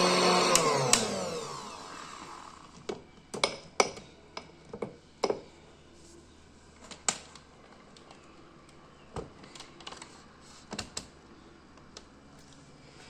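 Zelmer turbo stick blender running in a glass of milk, then switched off: its motor winds down with a falling whine over about a second and a half. Scattered sharp clicks and knocks follow as the blender is lifted out and handled.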